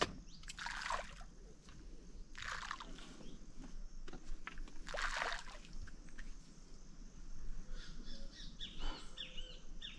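Outdoor ambience at a reservoir bank: three brief rushes of noise about two seconds apart, a steady high drone of crickets, and quick bird chirps near the end.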